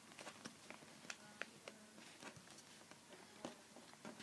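Sheet of paper being handled and folded: faint, irregular crinkles and soft taps as it is creased.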